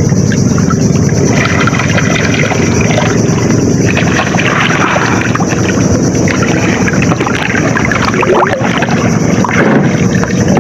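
Strong floodwater current rushing and swirling around people wading chest-deep; a steady, loud rush of water.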